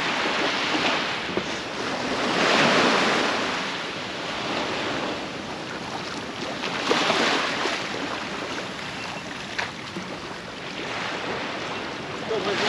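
Sea surf breaking and washing up a beach, the rushing noise swelling and fading as each wave comes in, three surges a few seconds apart.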